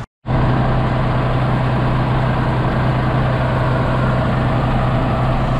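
Farm machine's diesel engine running steadily under constant load, a continuous low drone with no change in speed. It cuts in after a brief gap at the very start.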